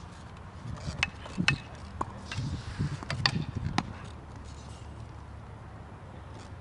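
Tennis rally: a handful of sharp racket strikes and ball bounces between about one and four seconds in.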